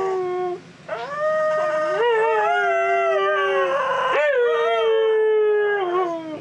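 Siberian husky howling: a run of about four long, wavering howls with short breaks between them.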